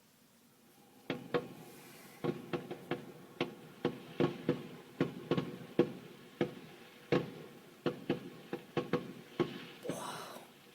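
Fireworks going off outside, heard through a window as an irregular string of sharp pops and bangs, roughly two or three a second. They start about a second in.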